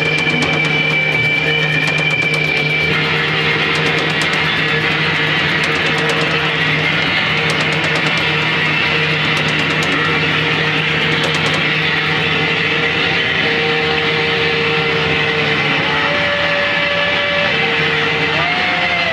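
Live noise music: a loud, steady wall of distorted noise over a low droning tone. A high held tone cuts off about three seconds in, and mid-pitched tones shift and glide near the end.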